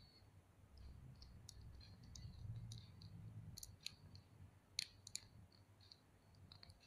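Scattered faint clicks and taps of small plastic action-figure parts, a hair piece and head, being handled and fitted together, the sharpest clicks a little before the end. Underneath, a soft low rumble from the handling.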